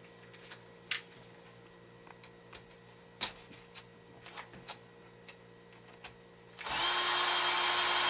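A few faint clicks, then about six and a half seconds in a cordless electric screwdriver starts and runs steadily with an even whine, driving a screw back into the RC buggy's rear axle assembly.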